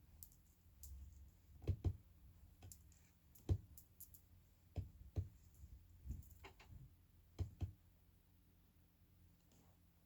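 Faint, irregular clicks and soft knocks, about ten of them scattered unevenly, with the two strongest near two and three and a half seconds in.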